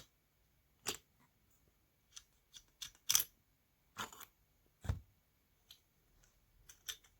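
Scattered sharp clicks and knocks of metal tools and parts being handled while a vacuum cleaner motor is taken apart, with a duller knock about five seconds in.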